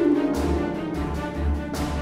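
Background music with a pulsing bass beat and regular percussive hits under sustained tones.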